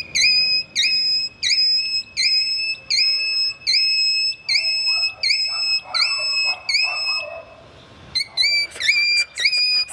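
A high, whistle-like tone repeated over and over, each note dipping briefly at its start and then holding steady, about three notes every two seconds. Near the end it pauses briefly, then repeats faster.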